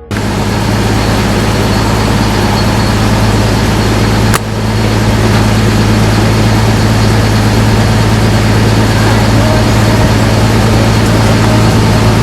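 Rebuilt Vauxhall Cresta engine running at a steady idle, with a brief dip about four seconds in.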